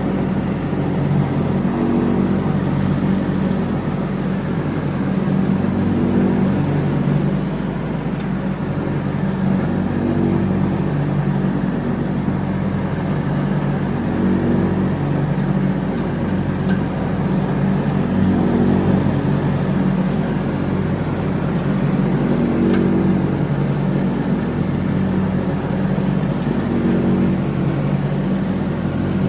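John Deere X304 lawn tractor's engine running steadily while mowing, its note swelling and easing slightly every few seconds.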